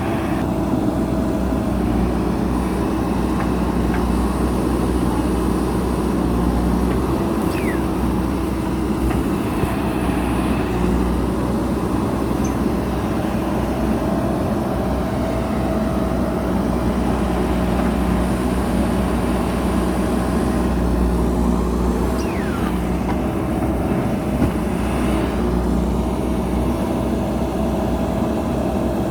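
JCB backhoe loader's diesel engine running steadily with an even drone.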